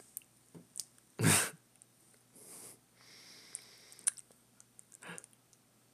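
A quiet room with small mouth clicks and one short, loud breath through the nose about a second in, followed by two softer breaths.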